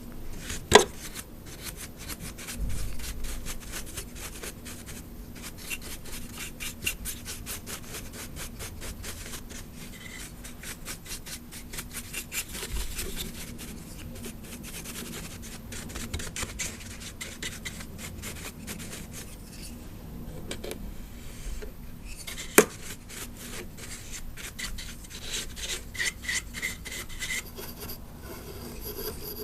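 A large soft brush sweeping over a plastic Lemax Spooky Town animatronic decoration, the bristles scratching and rubbing across the plastic in quick repeated strokes. Two sharp clicks stand out, one about a second in and one a little past twenty seconds in.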